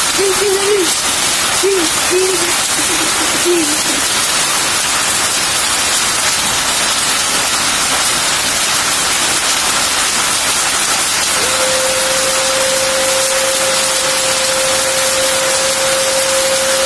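Heavy rain mixed with hail pelting a concrete yard and tin roofs: a steady, loud hiss. A few short wavering sounds come in the first four seconds, and a steady hum starts about two-thirds of the way in and holds.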